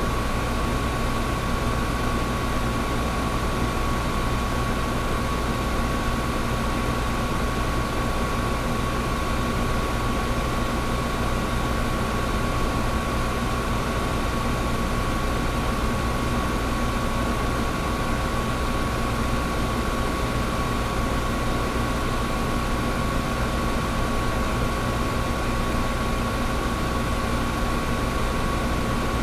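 Old window air conditioner running steadily: a constant rush of fan air over a low compressor hum, with a steady faint whine.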